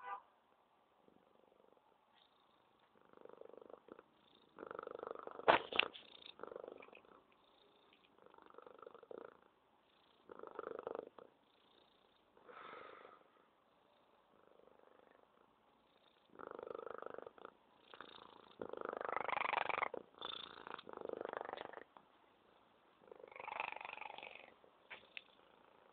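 Domestic cat purring in uneven spells with short pauses between breaths. One sudden sharp sound about five and a half seconds in is the loudest moment.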